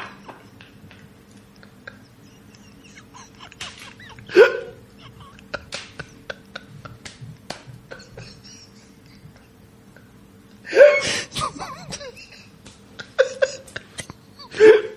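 A man stifling laughter (corpsing): scattered snorts, gasps and squeaky hiccup-like bursts, the loudest about four seconds in and a cluster around eleven seconds, with small breathy clicks between them.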